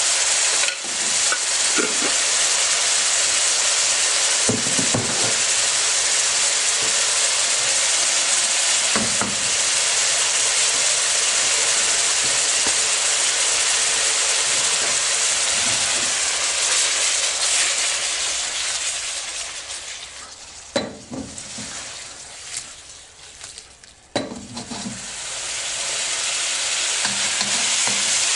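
Cubed beef sizzling in oil in a steel wok, with occasional knocks and scrapes of a wooden spatula stirring it. About two-thirds of the way through, the sizzle fades for a few seconds, broken by a couple of sharp knocks, then builds back up.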